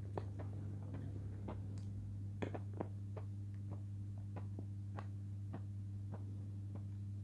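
Scattered soft, wet mouth clicks and lip smacks of someone eating sweet cream, irregular and sharpest about two and a half seconds in, over a steady low electrical hum.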